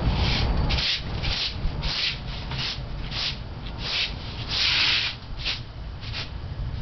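A bristle broom sweeping a concrete floor: about a dozen short, scratchy strokes at roughly two a second, with one longer stroke about two-thirds of the way through.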